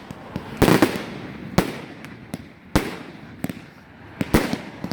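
1.3G compound firework cake firing: a quick cluster of loud shots and bursts near the start, then single reports about once a second, with crackle in between.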